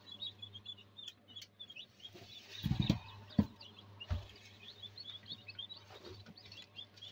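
Many young chicks peeping quickly and continuously. Between about two and four seconds in come a few loud knocks and rustles as the incubator's wooden trays are handled, over a low steady hum.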